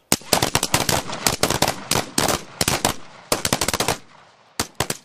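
A firing line of 5.56 mm rifles, M4 carbines and M27 infantry automatic rifles, firing a box drill: a fast, ragged volley of many overlapping single shots for about four seconds. It tapers to a few last shots near the end.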